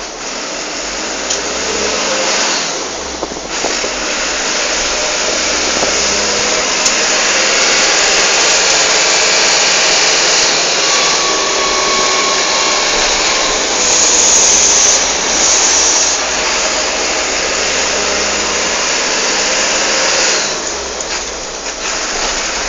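Wind and road noise inside a moving vehicle: a loud, steady rushing hiss with the engine running underneath. It grows louder a few seconds in and eases off near the end.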